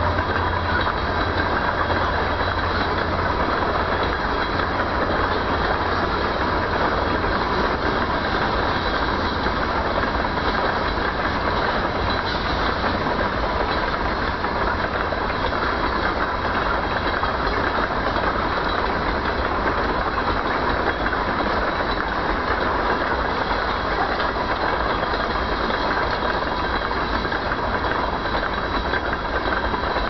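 Freight train of tank cars rolling steadily past, wheels on rail making a continuous noise, with thin steady high tones over it.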